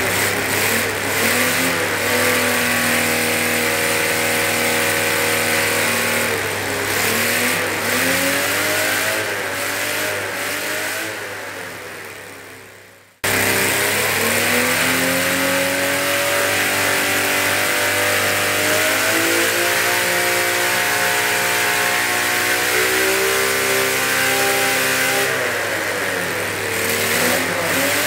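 An 87 cc air-cooled model V12 engine on methanol–nitromethane fuel, running and revving up and down. About halfway through, the sound fades away over a couple of seconds, then cuts back in suddenly with the engine running and revving again.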